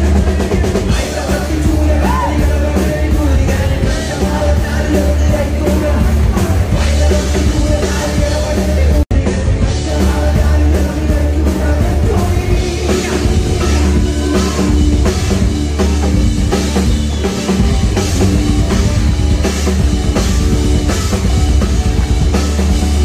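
Rock band playing live and loud: drum kit, electric guitar and a man singing into a microphone. The sound drops out for an instant about nine seconds in.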